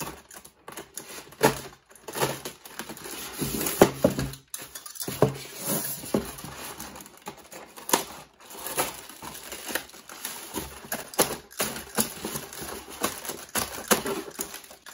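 Plastic wrap and bags crinkling and rustling, with many irregular clicks and scrapes, as accessories wrapped in plastic are worked loose from a styrofoam packing insert.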